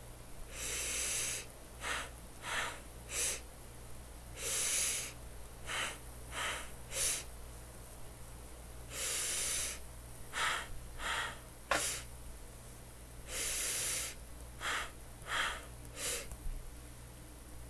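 A person breathing audibly through a deliberate, paced sequence: a longer deep breath in followed by three short breaths (half out, all the way out, half back in), repeated four times in the collarbone breathing exercise.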